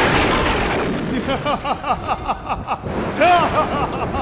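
The tail of a loud boom sound effect fades away over the first second. Then a man breaks into a rapid, gloating 'ha-ha-ha' laugh, louder about three seconds in.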